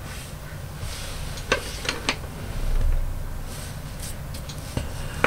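Coloured pencil strokes scratching softly on paper, broken by a few light clicks of the pencil being handled, and a sharp knock near the end, the loudest sound.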